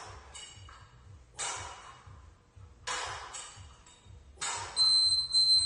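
Hard exhalations about every second and a half from a man doing dumbbell renegade rows. Near the end a workout interval timer sounds a steady, high beep, the loudest sound here, marking the end of the 45-second work period.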